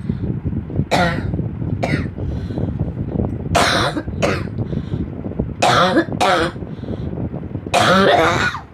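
A person coughing again and again: about seven short, harsh coughs at irregular intervals, the longest and loudest near the end, over a steady low rumble.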